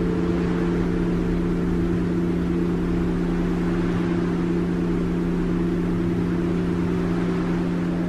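Steady electronic drone: several low tones held without change over a soft hiss, the background bed of a subliminal audio track.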